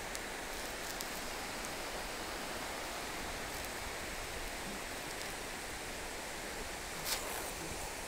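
Steady rush of flowing river water below the Keila-Joa waterfall, with a brief rustle about seven seconds in.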